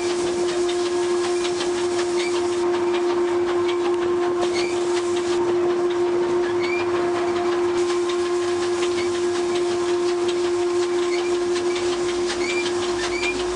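Peckett No.1438 steam locomotive and brake van on the move, with a steady high tone held throughout and faint clicks and short squeaks from the running gear over the rail noise.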